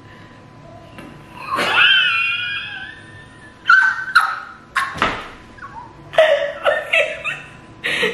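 A person laughing hard: a high-pitched squealing laugh about two seconds in, then a few gasping bursts and a run of quick repeated 'ha' laughs near the end.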